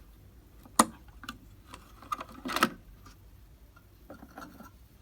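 Sharp clicks and light knocks of computer hardware being handled while fitting a CPU into its motherboard socket. The loudest click comes about a second in, a cluster follows about two and a half seconds in, and softer taps come near the end.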